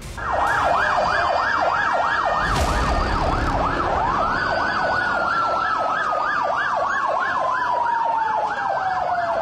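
Ambulance sirens wailing: one siren yelps rapidly up and down, a couple of sweeps a second. About four seconds in a second siren joins with a long tone that rises and then slowly falls in pitch.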